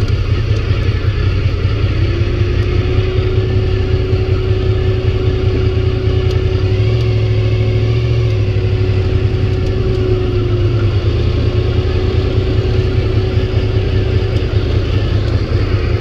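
Honda VFR's V4 engine running under way at a steady cruise, under a steady rush of noise. About seven seconds in, the engine note rises briefly and falls back.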